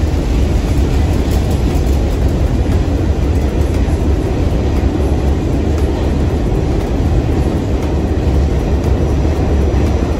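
Steady low rumble of a New York City subway train running, heard from inside the car: wheels on the rails and the car's running noise at an even level.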